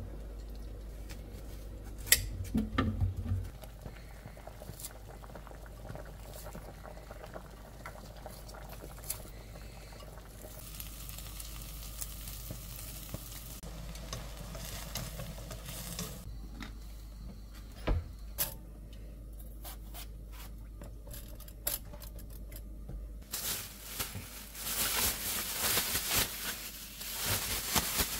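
Kitchen cooking sounds. Scattered knocks and clicks of a knife on a wooden cutting board come first. From about ten seconds in, vegetables sizzle as they are stirred in a hot pan with a wooden spatula, louder again near the end.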